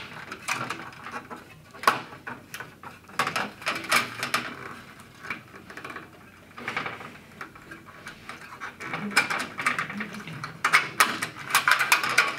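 Light metallic clicks and rattles from a sheet-steel fluorescent strip fixture as its tombstone lampholders are worked out by hand, growing busier near the end.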